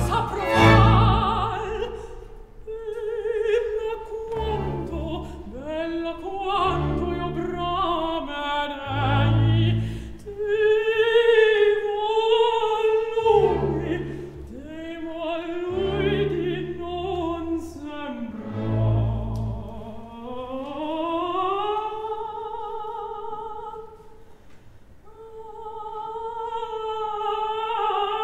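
Mezzo-soprano singing an operatic aria with wide vibrato, accompanied by an orchestra whose low chords return every few seconds. Toward the end the voice rises through a long held phrase.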